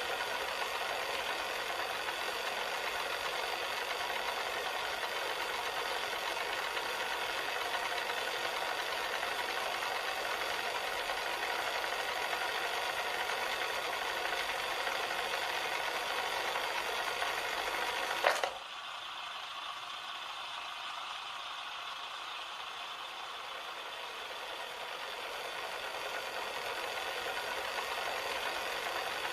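Cassette player mechanism whirring steadily as the tape transport runs. About 18 seconds in comes a sharp mechanical click, like a deck button or lever. After it the whir carries on quieter and slowly builds again.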